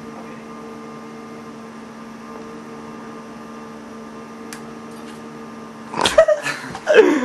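Steady electrical hum, then a sharp snap about six seconds in as a homemade mechanical-pencil staple shooter fires a folded staple hard enough to punch a hole in the wall, followed by a voice exclaiming.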